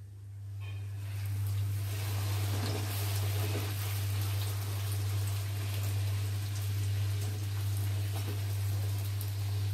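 Bhatura deep-frying in hot oil in a kadai: the oil sizzles and bubbles steadily around it. A steady low hum runs underneath.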